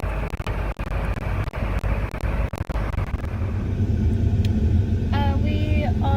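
Large diesel engine of farm equipment running steadily with a heavy low rumble. A short call from a voice is heard about five seconds in.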